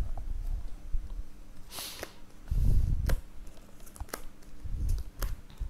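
Tarot cards being drawn from a fanned spread and laid face down on a rug: light taps and slides of card stock about once a second, with a brief swish about two seconds in and a low thump near the middle.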